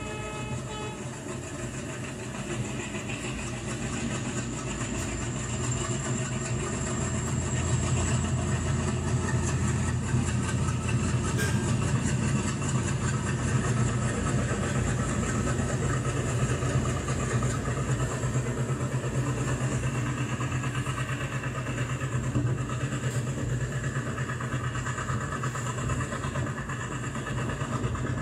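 ALCo diesel locomotive engine chugging hard as the locomotive accelerates, heard through a screen's speakers. A horn note dies away about a second in, and the chugging grows louder over the next several seconds, then holds steady.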